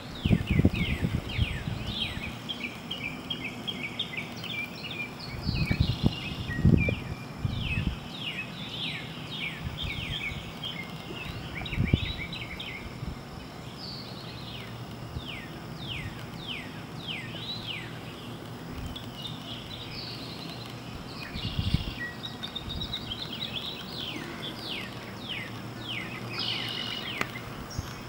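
Several unseen small birds calling and singing, a steady stream of quick downward-sliding chirps, with a few short low bumps scattered through.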